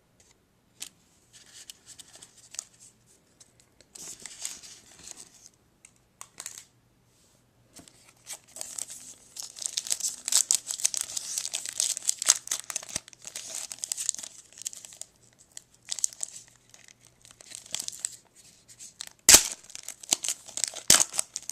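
Trading-card pack wrapper being torn open and crinkled in irregular bursts, densest through the middle, with one sharp, loud crack near the end.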